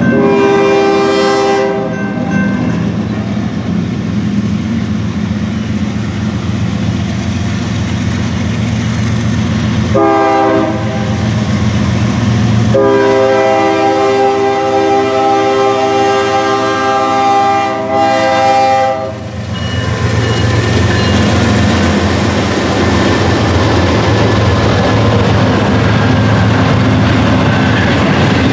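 Norfolk Southern GE ES40DC diesel locomotive sounding its multi-tone horn for a grade crossing: a long blast ending about two seconds in, a short blast about ten seconds in, then a long blast of about six seconds. After that the locomotive and the intermodal container cars roll past with steady rumbling wheel and rail noise.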